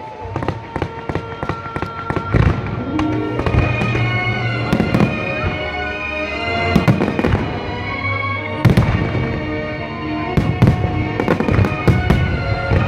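Aerial fireworks bursting in quick succession, a rapid string of loud bangs and crackles that bunch together at several points, over music playing with the display.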